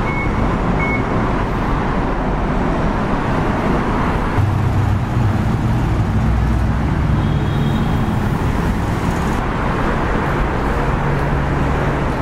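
Steady road traffic noise. Near the start there are two short electronic beeps from a ticket gate as a card is tapped.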